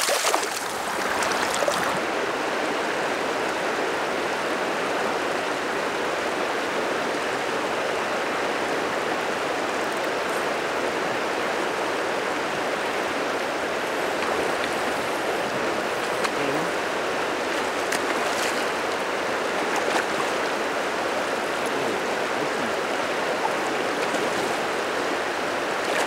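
A released coho salmon splashes as it kicks free of the hand at the start, then steady rushing of shallow river water over gravel.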